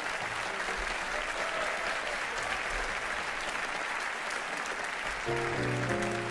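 Audience applauding steadily; about five seconds in, a piano comes in with sustained chords under the applause.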